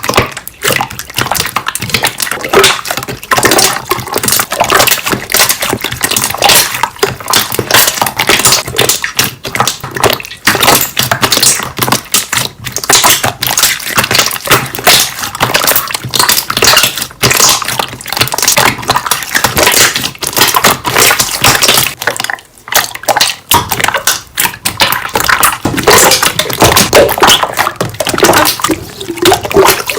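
Wet popping and squishing of air bubbles, a dense run of sharp clicks and crackles. It breaks off briefly about two thirds of the way through, then resumes.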